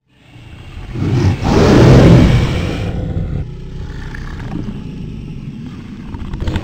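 Deep, noisy sound effect for an animated dragon. It swells to its loudest about two seconds in, eases to a lower steady level, and swells again near the end.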